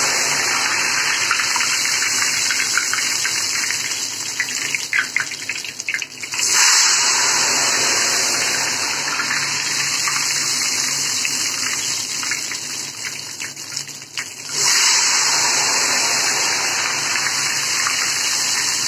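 Ghevar batter frying in very hot oil on a high flame: loud, steady sizzling and bubbling. The sizzle twice thins to scattered crackles and then surges loud again, about six and a half and fifteen seconds in.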